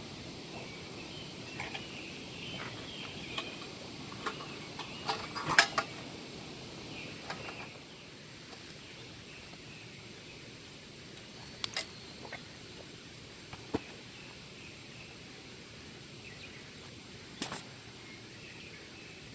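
Quiet woodland ambience with faint chirping during the first half, broken by a few sharp clicks and knocks, the loudest about five and a half seconds in.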